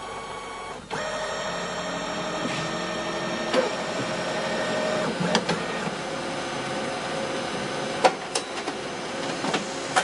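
Photocopier making a copy. About a second in its motor starts up into a steady whir, with a hum that rises a little in pitch, and it gives several sharp mechanical clicks as it runs.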